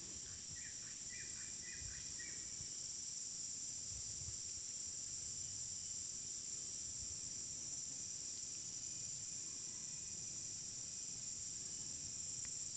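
A steady, high-pitched chorus of insects such as crickets, chirring without a break. A few short chirps sound over it in the first couple of seconds.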